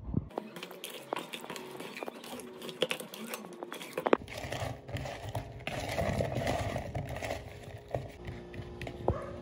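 Raw chicken drumsticks being mixed by hand with seasoning and mayonnaise in a plastic bowl: wet squishing with many small knocks of the pieces against the bowl. About four seconds in, the sound changes to potato chunks being tossed by hand in the bowl.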